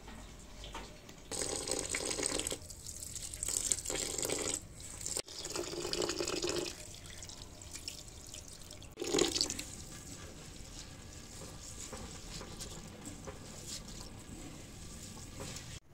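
Rice being washed by hand in a bowl of water at a sink: water running and splashing in four loud stretches over the first ten seconds, then softer swishing of wet grains.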